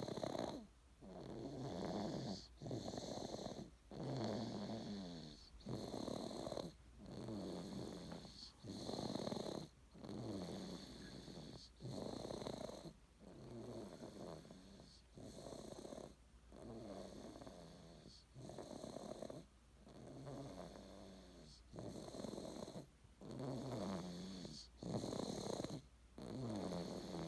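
Snoring: rhythmic rasping breaths, each lasting about a second, separated by short pauses.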